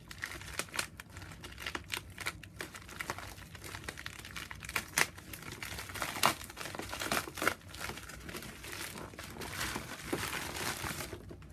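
A padded USPS Priority Mail envelope crinkling and rustling as it is handled and torn open, with irregular sharp crackles and a few louder snaps.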